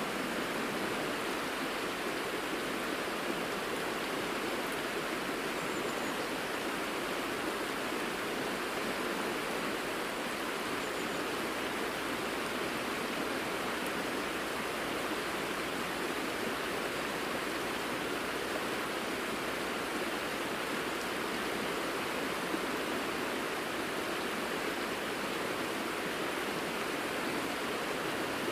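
Shallow mountain river rushing steadily over a gravel bed, an even, unbroken water sound.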